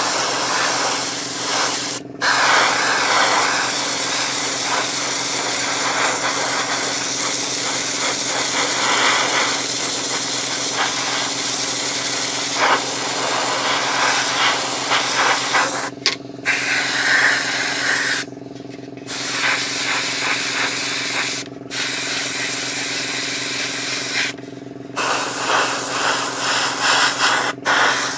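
Airbrush hissing as it sprays light mist coats of grey primer, broken by several short pauses where the trigger is let off, over a steady hum.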